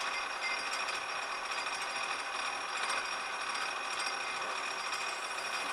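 Metal lathe running steadily, an even mechanical hum with a faint steady high whine.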